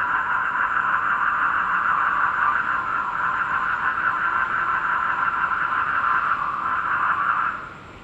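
Black-spectacled toads trilling in a dense, steady chorus that cuts off abruptly near the end.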